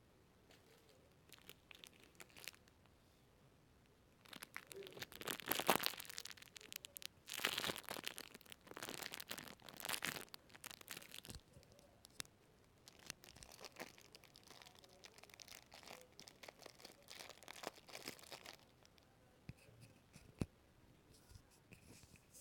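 Close-miked ASMR handling sounds: crackly rustling and tearing-like crinkles, densest from about four to eleven seconds in, then quieter until near the end, with a few soft taps around them.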